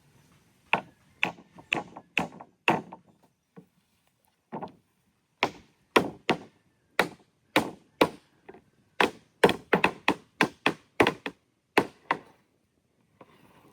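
A series of sharp striking blows, about two dozen in irregular runs of two to three a second, with a pause a few seconds in. Some blows ring briefly.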